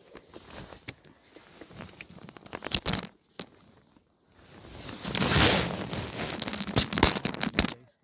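Loud rustling and crackling of clothing and handling right against the microphone as the angler moves about in front of it, in two spells with sharp crackles, the second longer and louder.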